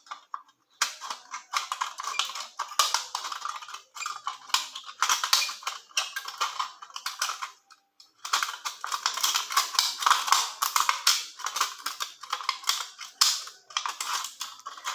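Thin aluminium beer can being cut into strips: a dense, rapid crackle of thin metal being snipped and flexed, with short pauses about a second in and again about eight seconds in.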